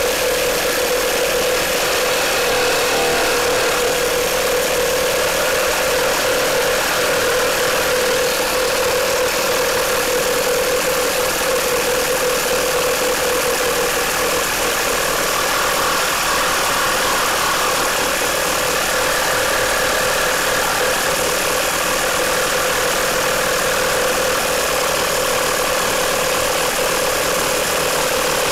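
Makita JR3050T corded reciprocating saw running steadily under load, its blade sawing through a thick timber beam studded with nails. The saw is pulled into the cut by a hanging 5 kg weight.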